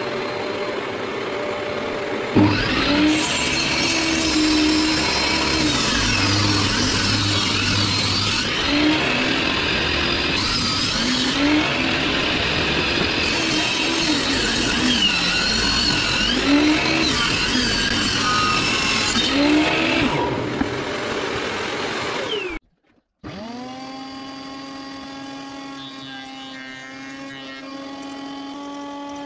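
Table saw running, then ripping a wooden board from about two seconds in. The motor pitch sags and recovers as the wood is fed through the blade for about twenty seconds. After a brief break near the end, the saw spins freely with a steady, quieter whine.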